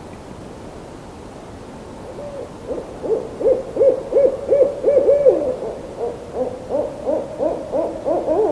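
An owl hooting in a quick run of short notes, each dropping in pitch, about three a second, starting about two seconds in. A second, lower series of hoots joins near the end, over a steady background hiss.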